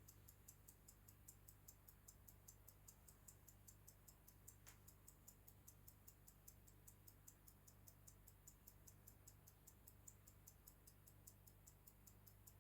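Mechanical Swiss pocket watch ticking, even and quick at about five ticks a second, over a faint low hum.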